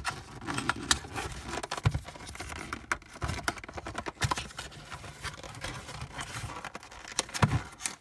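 Cardboard box being opened by hand, its end flap pried up and pulled open, with scraping and crinkling and many irregular small clicks and taps.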